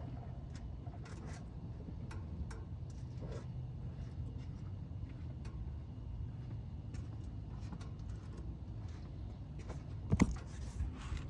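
2006 Acura Type S running with a steady low hum, with scattered faint clicks and a sharp knock about ten seconds in: the steering noise the owner is asking about.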